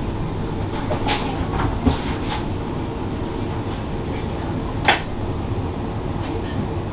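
Passenger train heard from inside the carriage, running slowly past a platform with a steady low rumble and hum. Two sharp knocks stand out, about a second in and again near five seconds.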